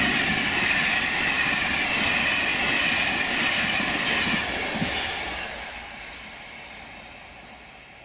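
Intercités train of Corail passenger coaches passing at speed: steady wheel-on-rail and rushing air noise, with one sharp clack about five seconds in. It then fades away as the last coach goes by.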